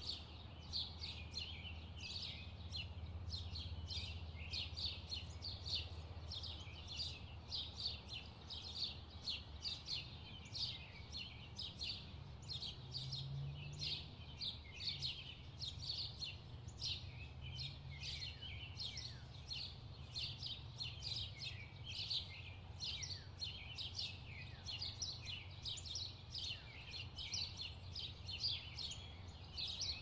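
A chorus of small birds chirping continuously, short high chirps several a second, over a low steady rumble.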